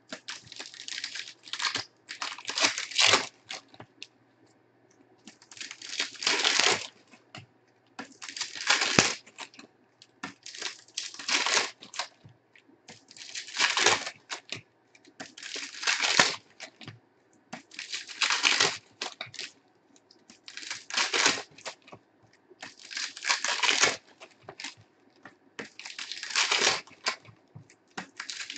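Shiny foil wrappers of Panini Prizm basketball retail card packs being ripped open and crumpled, one pack after another. There is a crackling tear about every two to three seconds.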